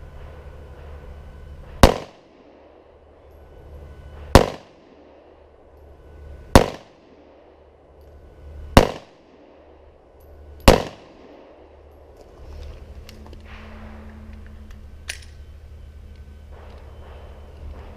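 Kel-Tec PF9 9mm pistol firing five single shots, about two seconds apart, emptying a five-round magazine.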